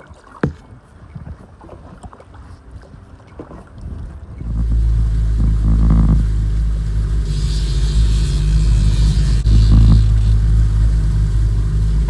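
A few seconds of quieter sound with a sharp knock, then an outboard motor starts up loud, pushing the boat along at trolling speed: a steady low hum with the hiss of the wash.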